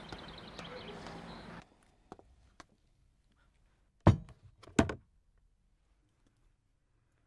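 Steady outdoor ambience that cuts off about a second and a half in, then a few light knocks and two loud thumps less than a second apart, from household objects being handled on a bedroom floor during cleaning.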